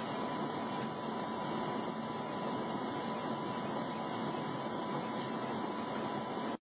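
Steady hiss with a constant thin high tone running through it, cutting off abruptly near the end.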